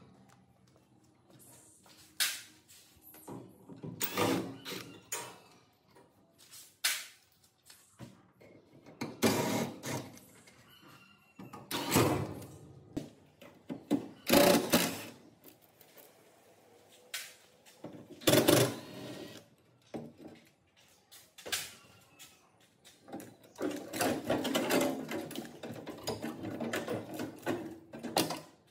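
Hand repair work with tools and parts: a string of short scrapes, knocks and rattles with pauses between them, and a longer, busier stretch of handling near the end.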